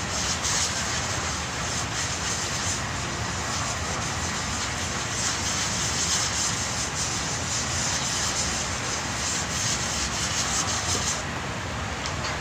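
Body filler on a pickup's steel front fender being wet-sanded by hand with a sanding block: a rasping rub in quick back-and-forth strokes that stops about eleven seconds in.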